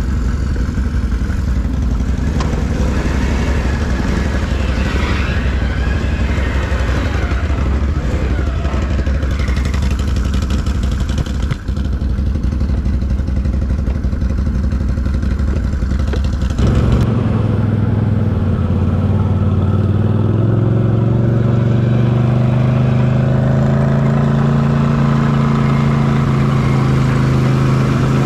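Can-Am Renegade 1000R ATV's V-twin engine idling, then, a little over halfway in, switching abruptly to a steadier, louder drone that climbs gently as the quad pulls away down the trail.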